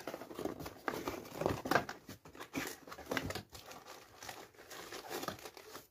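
Paper and plastic packaging crinkling and rustling unevenly as hands dig into a cardboard camera box and lift out the wrapped camera.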